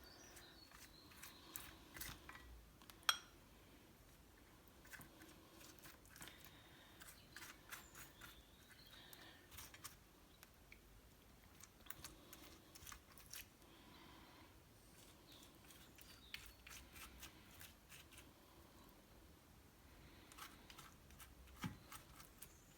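Faint sticky dabbing and soft clicks of a brush coating chicken drumsticks with sauce, with one sharper click about three seconds in.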